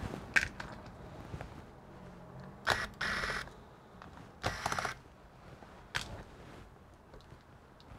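Handling noises from working on a laptop on a bench: a sharp click about half a second in, two short clattering bursts around the middle, and another click near the end.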